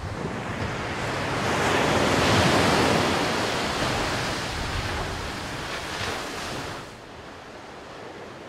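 Ocean surf washing in with wind: a wave's rush builds to a peak a couple of seconds in, then slowly recedes and drops away near the end.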